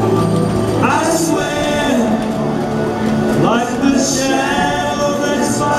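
Animatronic stage show's recorded song playing through the stage speakers: a male voice singing long, sliding notes with backing harmony voices over a band track, with cymbal hits about a second in and again about four seconds in.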